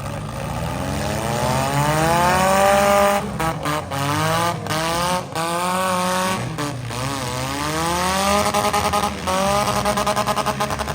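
Demolition derby cars' engines revving hard, their pitch rising and falling again and again as several cars accelerate and back off, with a fast pulsing throb near the end.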